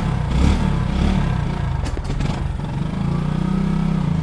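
Motorcycle engine running while the bike rides along, its pitch rising over the last second or so as it speeds up. A few short knocks sound about two seconds in.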